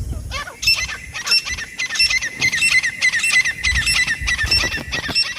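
Francolin (teetar) calling: a fast run of short, sharp, high-pitched notes, several a second.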